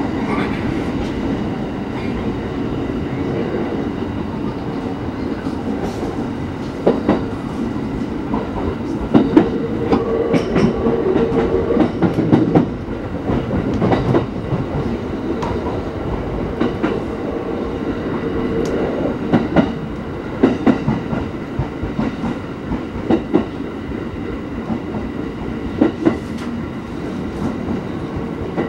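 Hachikō Line electric train running, heard from inside the carriage: a steady rumble with the wheels clicking over rail joints.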